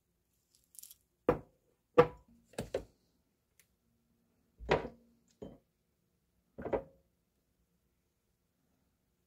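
Glass dishes and a cardboard drink carton being set down and moved on a countertop: about seven separate knocks, the loudest about two seconds in.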